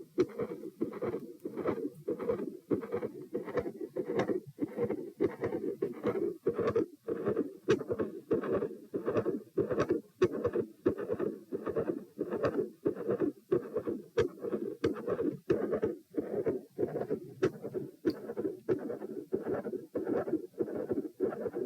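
Human heartbeat heard through a stethoscope over the pulmonic area, beating in a steady rhythm with split first and second heart sounds. A continuous murmur runs beneath the beats through the whole cardiac cycle.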